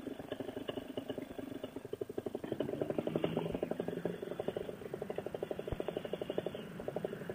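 Paramotor engine idling with a rapid, even pulse.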